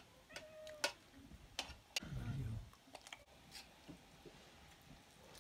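Faint, scattered light clicks and ticks at irregular intervals, with a brief low rumble about two seconds in.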